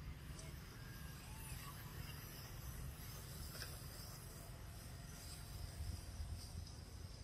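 Faint outdoor background: a steady low rumble and a steady high hiss, with a few faint clicks.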